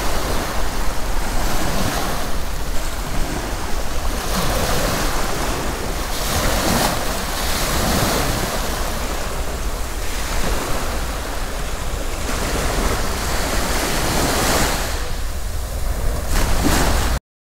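Sea waves breaking and washing on the beach shore, surging again and again, with wind rumbling on the microphone. The sound cuts off suddenly just before the end.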